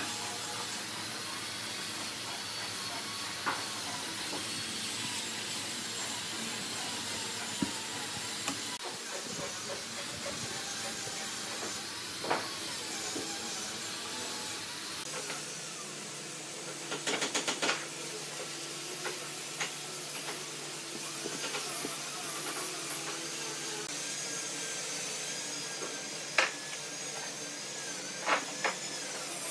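Steady hiss of workshop noise with a few light knocks and clicks as a wooden stick spreads glue along pine board edges and the boards are handled, including a quick run of clicks about halfway through.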